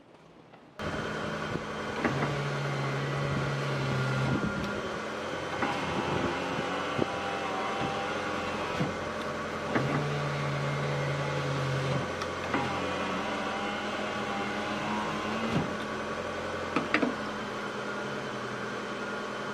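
A 1997 Mitsubishi Lancer's front passenger power-window motor and regulator running the glass in two runs of about two seconds each, with short clicks around them, over a steady hum. The motor runs again now that its water-rusted commutator has been cleaned.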